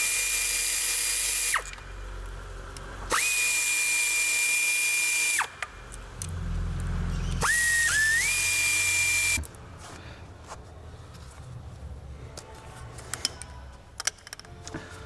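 Power drill-driver with a Torx T30 bit spinning up three times, for about two seconds each, as it backs out the bolts of an engine's crankcase ventilation housing: a steady high whine that starts and stops abruptly. Light clicks and clatter of the tool and loose bolts follow in the last few seconds.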